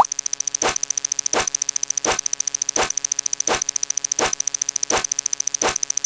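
Looping electronic sound effect: a sharp click about every 0.7 s over rapid, fainter ticking and a steady high-pitched tone.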